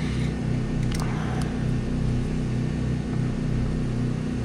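A steady low motor hum that pulses at an even rhythm of a few beats a second, with a couple of light clicks about a second in as the plastic wiring connector is handled.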